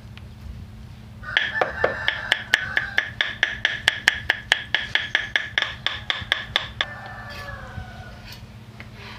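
Kitchen knife mincing garlic on a round wooden chopping board: a quick even run of chops, about four to five a second, for some five seconds. A rooster crows at the same time, one long held crow that falls away near the end.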